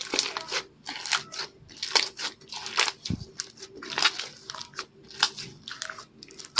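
Slime being squished and kneaded by hand: irregular sticky crackles and pops, several a second.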